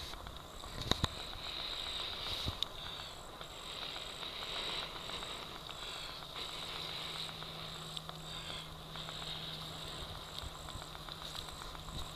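Breath blown steadily into a smouldering tinder bundle of grass and cypress-bark fibres, coaxing a bow-drill ember into flame. Insects chirp about twice a second behind it.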